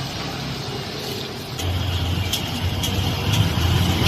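Street traffic: a vehicle engine running close by, its low hum getting louder about a second and a half in, with a few light clicks over it.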